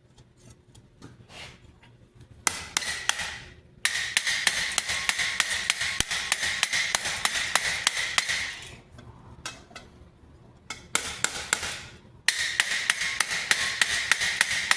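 A hammer striking steel helmet parts in quick, even blows, about four or five a second, in two long runs, with the metal ringing under each blow.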